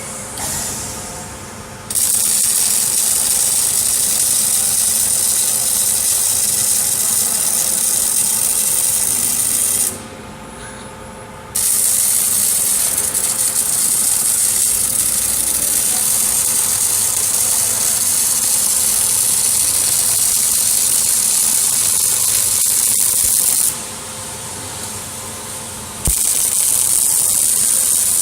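Robotic arc welding: a steady, loud, hissing arc burn that starts about two seconds in, cuts out for a second or two twice, then strikes up again. A low steady machine hum runs underneath.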